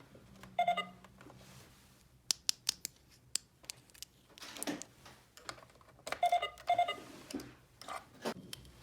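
Light clicks and taps of small plastic toy pieces being handled, with two brief pitched squeaks or tones, one about a second in and one around six seconds.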